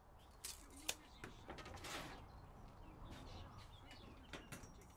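Faint clicks and taps of a pencil and tape measure being handled and set down on an MDF board, with one sharp click just under a second in and a brief rustle about two seconds in.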